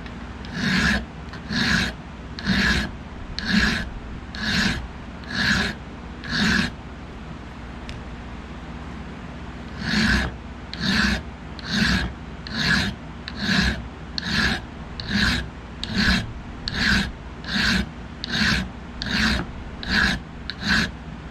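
Hand file rasping across the metal end sticking out above a knife's stacked leather handle, filing it flat for peening. Even strokes about one a second: seven, a pause of about three seconds, then some fourteen slightly quicker strokes.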